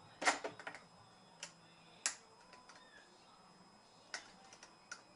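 Irregular small sharp clicks and taps of a little flathead screwdriver working at the bolt of a rifle scope mount, loosening it: a few in the first second, single ones around the middle, and several more near the end.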